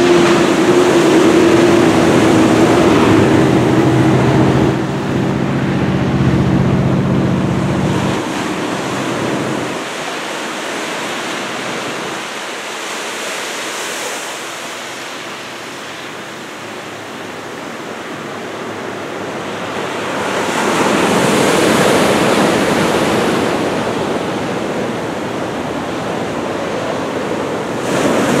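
Heavy typhoon-swell surf breaking and washing on the shore, with wind buffeting the microphone; a wave breaks loudest about twenty seconds in. A vehicle's engine hums through the first eight seconds and then fades.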